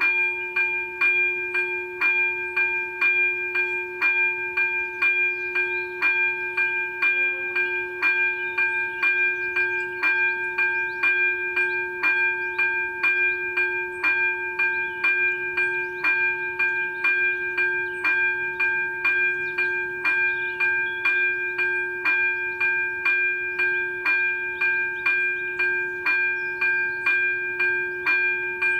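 Level-crossing warning bell ringing in a steady, even rhythm of about two strikes a second, each strike ringing on at several pitches: the crossing is closed and a train is approaching.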